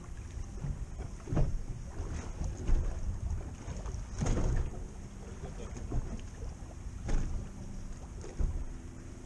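Wind on the microphone and water lapping against the hull of a small fishing boat at sea, a steady low rumble broken by a few louder bumps.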